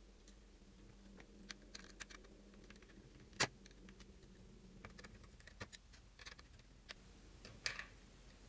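Faint, irregular small clicks and taps of a hand tool on small screws as they are driven through a steel wire's end loops into a wooden board. The loudest click comes about three and a half seconds in, another sharp one near the end.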